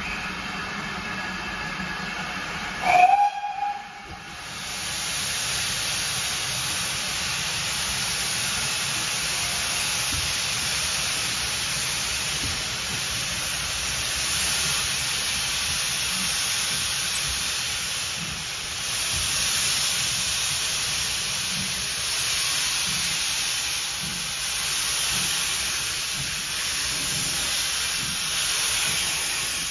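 GWR Manor-class steam locomotive Odney Manor sounds a short whistle about three seconds in, then starts away with a steady loud hiss of steam from its open cylinder drain cocks, swelling and easing gently.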